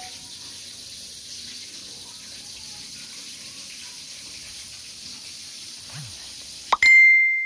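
A steady hiss, then, near the end, a sharp click followed by a loud, high, steady beep.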